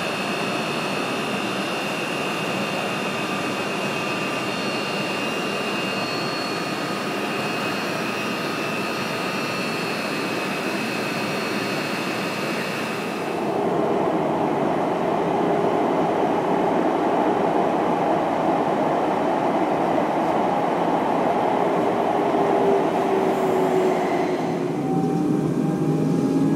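Electric commuter train: first a steady hiss with a thin, high whine held at the underground platform, then, after a cut, louder running noise from inside the moving train, with faint rising tones near the end.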